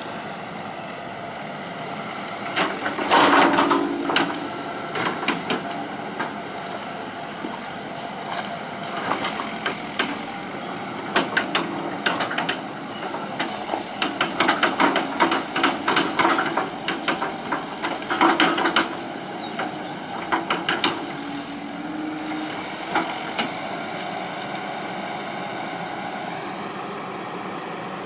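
Hitachi EX120 hydraulic excavator running steadily while working, with several bursts of clanking and squeaking from its moving steel parts.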